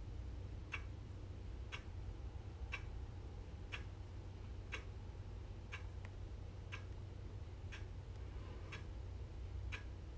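Steady ticking, one sharp tick about every second, over a faint low hum.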